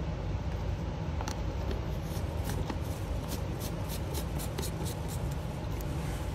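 Home heating or air-conditioning system running as a steady low hum, with a run of light clicks and taps from about two seconds in: a spatula in a small plastic cup of mica and a jar being handled.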